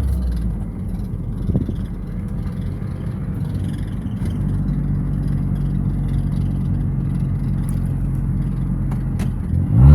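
Car engine running steadily at low road speed, heard from inside the vehicle, as a low hum. Near the end the engine note rises sharply, as in a rev during a gear change.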